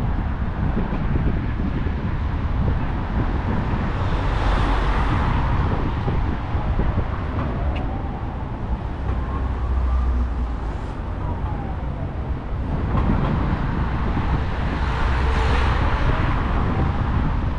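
Road traffic passing close by over a steady low rumble, with two louder vehicle passes that swell and fade, one about a quarter of the way in and one near the end.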